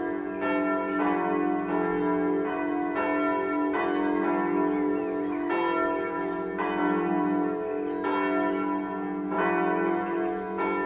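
Full peal of church bells: several swinging bells striking in turn, about once every second, with overlapping strokes. Each stroke keeps ringing over a steady low hum from the bells.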